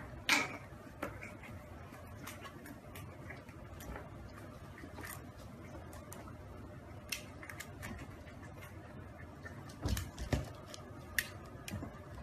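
Faint scuffs, taps and clicks of a French bulldog puppy squirming in a plastic basin on a tile floor, with a few louder knocks about ten seconds in.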